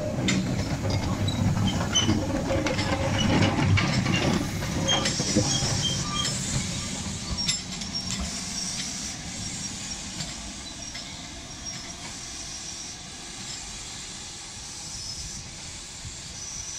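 LMS Black 5 4-6-0 steam locomotive moving slowly, with steam hissing from the open cylinder drain cocks, mixed with clanks, clicks and a few short squeaks from the running gear and rails. It grows quieter over the second half.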